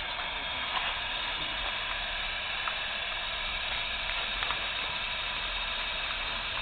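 Steady hiss from a handheld FM radio receiver with its squelch open, tuned for an amateur satellite that has not yet come over the horizon, so no signal is heard yet, only a few faint ticks.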